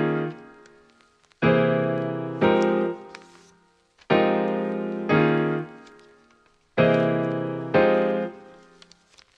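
Background music: slow piano chords struck in pairs about a second apart, each ringing out and fading away before the next pair, three times over.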